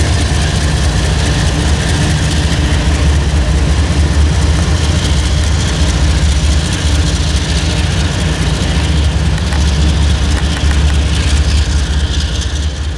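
Diesel-electric freight locomotive engine running at close range: a loud, steady, deep drone.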